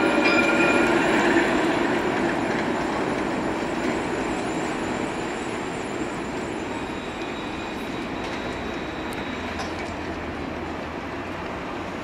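Alstom Citadis tram passing close and running away on its rails, its sound fading steadily over several seconds, with a brief high whine in the first second.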